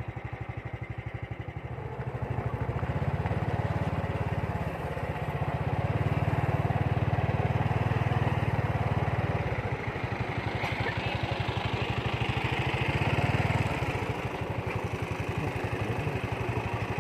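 Motorbike engine running, its throttle rising and easing off several times, louder in the middle and settling back toward a lower note near the end.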